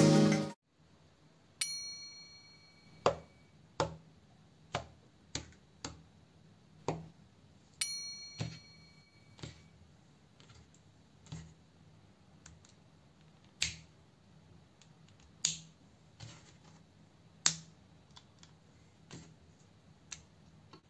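LEGO-style plastic bricks and parts being pressed and snapped together by hand: sharp single clicks at irregular intervals, roughly one a second. Twice, about a second and a half in and about eight seconds in, a click is followed by a short ringing ping.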